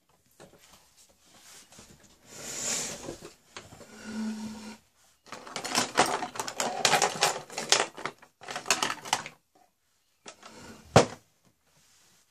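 Small hard objects being handled and rummaged through, making quick rattling clicks and rustles, with one sharp snap a little before the end.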